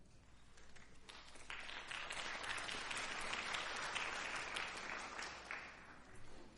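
Audience applauding at the end of a brass ensemble piece: the clapping swells about a second and a half in and dies away near the end.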